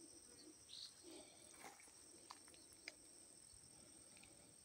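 Near silence outdoors: a faint, steady, high-pitched insect chorus, with a few faint ticks.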